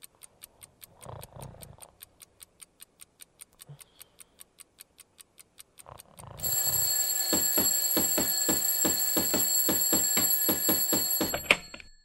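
A clock ticking steadily. About six seconds in, a mechanical alarm clock's bell starts ringing loudly, its hammer striking rapidly, and it cuts off with one loud knock near the end.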